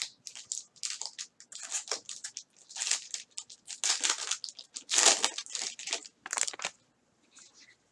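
A plastic wrapper being crumpled and crinkled by hands, a dense run of irregular crackles that stops about seven seconds in.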